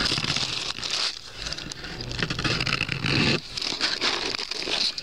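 Paper sandwich wrapper rustling and crinkling as it is handled and peeled back from the sandwich, in irregular crackles.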